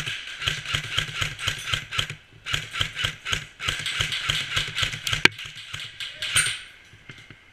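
Airsoft electric gun firing long full-auto bursts: a fast, even mechanical rattle of shots, broken briefly about two seconds in and stopping near the end.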